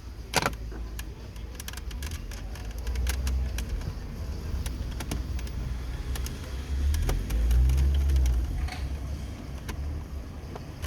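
Plastic dashboard trim of a 2016 Renault Duster being pried loose around the radio panel: scattered clicks and small snaps of plastic, the sharpest about half a second in, over a low rumble.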